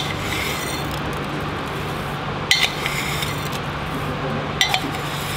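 Crockery and utensils clinking in two quick pairs of clinks, about two and a half and four and a half seconds in, over a steady fan hum.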